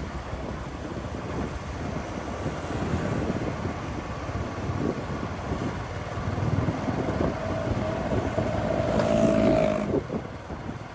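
Wind buffeting the microphone over engine and road noise from a moving ride in traffic, with a steady tone sounding for about three seconds in the second half.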